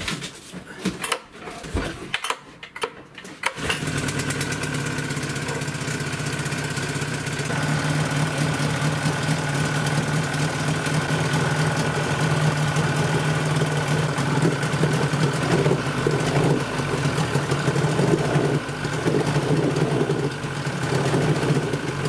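Yamaha 30 outboard motor starting about three and a half seconds in, then running steadily at idle with its lower unit in a barrel of water, a test of how it idles after its carburettor has been cleaned to cure its sneezing and hard starting.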